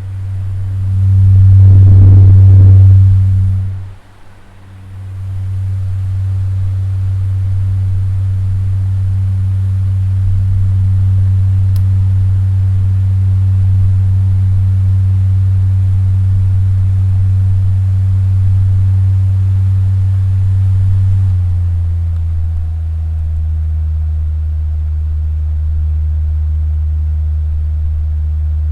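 Three-speed electric fan running with a steady low hum. It swells loudest in the first few seconds, dips briefly about four seconds in, then holds steady. About twenty seconds in the hum drops slightly in pitch.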